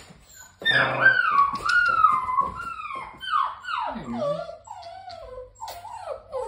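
A puppy whining: a run of high whimpers, about two a second, each sliding down in pitch. They start about half a second in, and after the middle they grow lower and softer.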